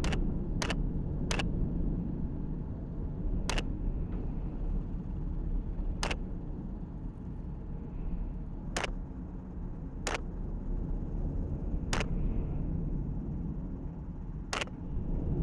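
Steady low rumble of a helicopter in flight, broken by about nine sharp cracks at uneven intervals.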